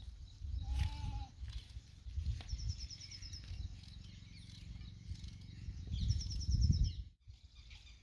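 Wind rumbling on the microphone, with a single bleat about a second in and a bird's short, quick high trill heard twice.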